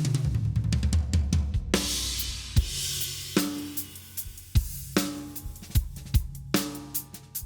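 Drum kit being played: a fill down the toms ends on a crash cymbal about two seconds in, then a steady beat of kick, snare and cymbals.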